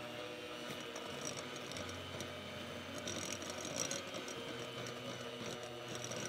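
Electric hand mixer running steadily, its wire beaters whipping egg into creamed butter and sugar in a glass bowl, with scattered clicks as the beaters touch the glass.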